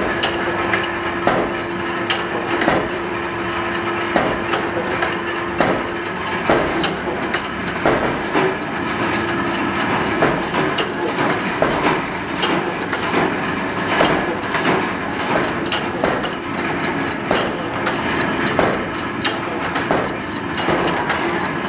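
Workshop machinery running steadily under frequent, irregular metallic clicks and knocks of steel scissor blanks being handled and worked, with a steady hum through the first six seconds.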